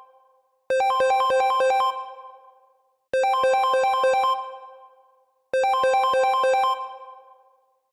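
Samsung phone ringtone for an incoming call: a short synthesized phrase of quick, bright notes, played three times about two and a half seconds apart, each phrase fading out before the next begins.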